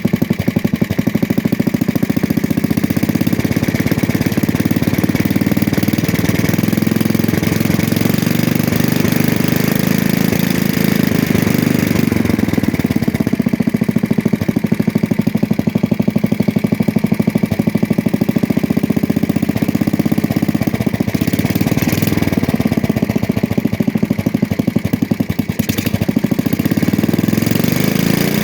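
Small single-cylinder garden tractor engine running steadily after a rebuild, with a light tap in its beat. The engine speed shifts slightly now and then.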